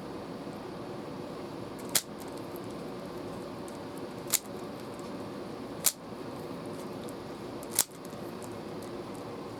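Four sharp plastic clicks about two seconds apart, typical of a Rubik's Cube's layers being snapped round, over a steady background hum.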